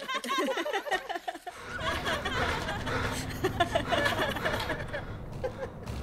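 People giggling and laughing, with unclear voices, over a low rumble that comes in about a second and a half in.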